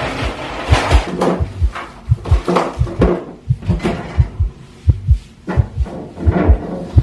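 Fast, pounding heartbeat sound effect: low paired lub-dub thumps a couple of times a second. Over it come the scrapes and knocks of someone rummaging through cupboards.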